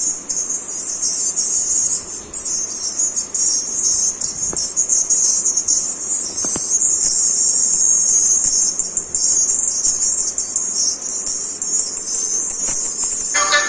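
A copy of a Pioneer TS-S250 car tweeter, wired alone to a small amplifier, playing music. Only a thin, high treble comes through, with no bass or midrange, and it cuts off suddenly near the end.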